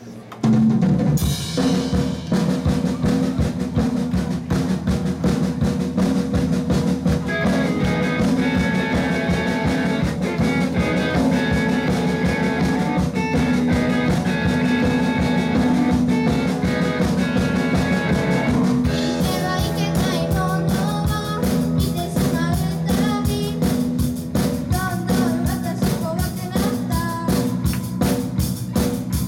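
A live band launches into a song, drum kit prominent with kick, snare and rimshots over a full band. The music kicks in abruptly about half a second in and changes its arrangement about two-thirds of the way through.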